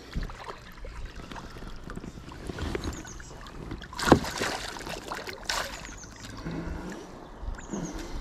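Faint water and handling noises while a pike is being landed, with a sharp knock about four seconds in and a lighter one about a second and a half later.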